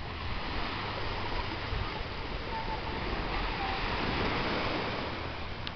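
Gentle surf washing onto a sandy beach, a steady hiss of waves, with wind rumbling on the microphone.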